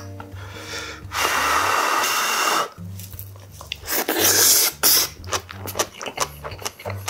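Close-up eating sounds: two long, loud slurps of hot kimchi stew from a wooden spoon, then wet chewing with quick smacking clicks. Background music with a low bass line runs underneath.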